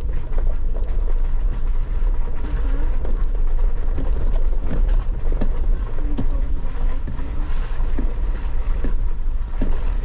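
Off-road vehicle crawling slowly over a rutted, muddy dirt trail: a steady low rumble of engine and tyres, with irregular knocks and clunks from the body and suspension as it rides over bumps.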